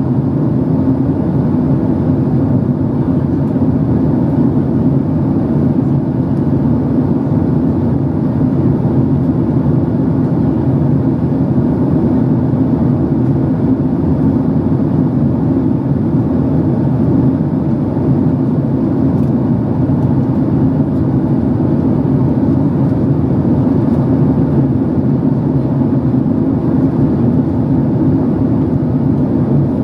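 Steady cabin noise inside a Boeing 767-300 airliner in the climb: the even rush of the twin engines and airflow, low and constant, with no change in level.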